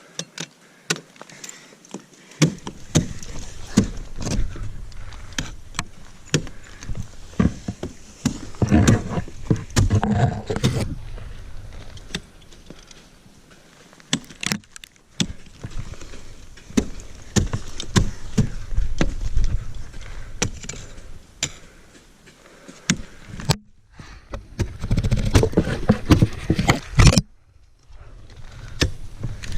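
Ice tools and crampons striking waterfall ice, heard as many sharp knocks, with metal climbing gear clinking. A low rumbling noise comes and goes under the knocks.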